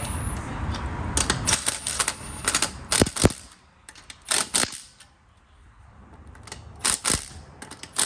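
Cordless impact spinning a lug nut onto a wheel stud, then a rapid clatter of hammering for about two seconds as the nut seats. A few separate metallic clicks follow as the next lug nut is fitted into the socket by hand.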